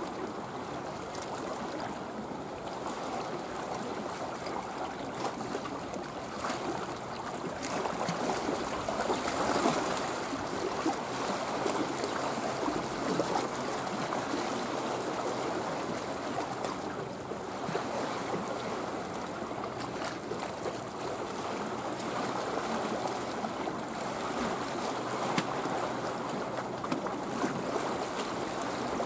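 Small sea waves lapping and splashing close by, a steady watery wash with irregular little splashes.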